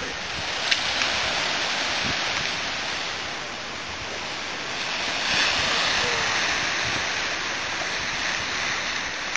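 Sea surf washing and splashing against the foot of a rocky cliff: a steady hiss of breaking water that swells about five seconds in. A single sharp click sounds less than a second in.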